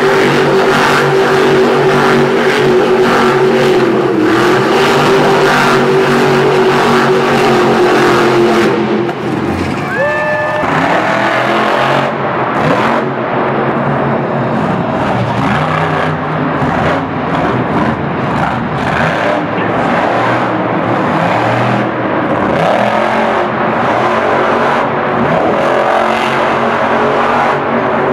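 Monster truck engines revving hard. First comes a high engine note held steady as a truck spins donuts. After a short rising tone, a second truck's engine surges up and down again and again as it jumps and slides through dirt.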